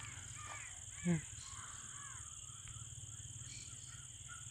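Faint crows cawing, a handful of short arched calls scattered through, with one brief low voice sound about a second in and a steady high hiss underneath.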